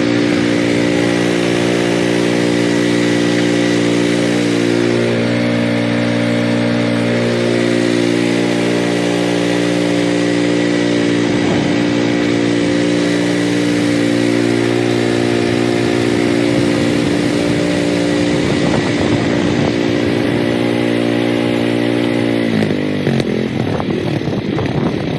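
Cub Cadet 3X 30HD snowblower engine running steadily while clearing snow. Its note falls and turns uneven near the end.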